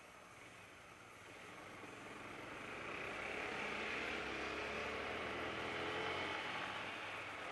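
Honda CB300R single-cylinder motorcycle riding in traffic, with engine and wind rush on the microphone swelling as it picks up speed, loudest in the middle, then easing off near the end.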